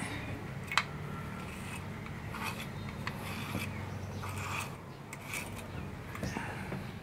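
Slicker brush raking through a puppy's fur in repeated short scratchy strokes, with a sharp click about a second in.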